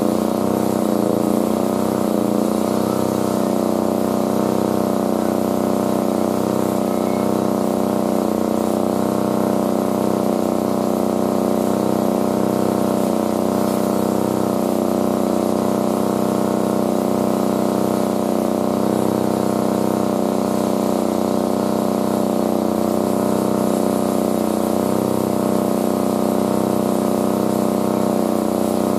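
A steady engine-like machine drone with a low hum that wavers slightly in pitch.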